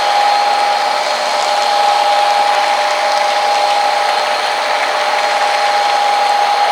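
Model train running on the layout: a steady motor whine over the rolling noise of its wheels on the track, with a few faint ticks.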